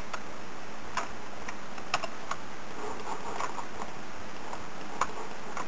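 Scattered single clicks and taps from a computer keyboard and mouse, irregular and a second or so apart, over a steady hiss.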